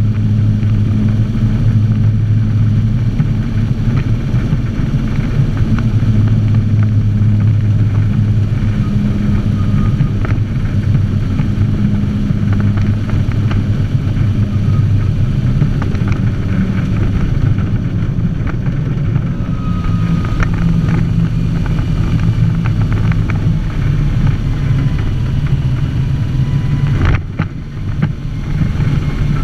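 Unimog 404's petrol straight-six engine running steadily under way, heard from inside the cab, with scattered light clicks. The sound dips briefly near the end.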